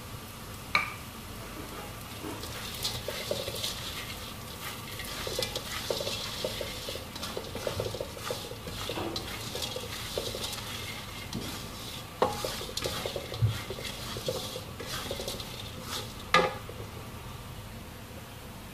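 Spatula scraping and tossing small fried tempe pieces around a wok over a gas flame, with light sizzling of the oil; the spatula knocks sharply on the wok about a second in and again around twelve and sixteen seconds in, and the stirring stops near the end.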